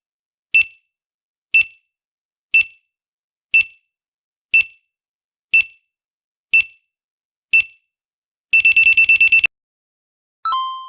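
Quiz countdown timer sound effect: short pitched ticks once a second, then about a second of rapid alarm beeping as time runs out, then a single ding that rings out near the end.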